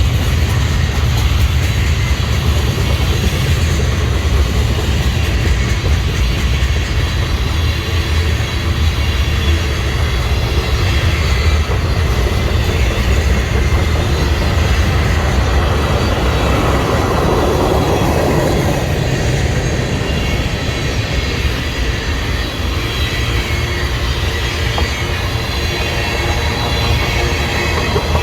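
A train rolling past: a loud, steady low rumble with rail and wheel noise, and a falling tone about two-thirds of the way through.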